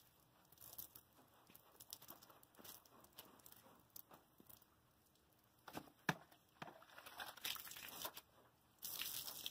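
Long-handled scrub brush scrubbing the wet aluminum skin of an Airstream trailer: faint, irregular scratchy strokes of bristles on metal, louder near the end.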